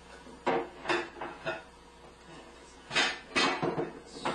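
Dishes and cupboard doors clattering while a dishwasher is unloaded: a run of knocks and clinks about half a second in, and another run about three seconds in.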